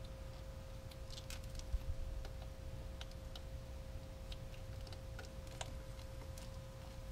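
Faint, irregular small clicks and taps of hands working a plastic wiring connector and rubber terminal cover onto a car starter motor, over a steady faint hum.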